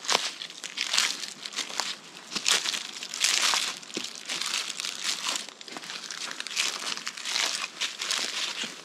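Hiker's footsteps crunching through dry leaf litter, a step about every second at a steady walking pace.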